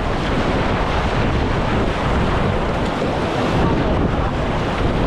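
River water rushing steadily around a raft, with wind buffeting the microphone.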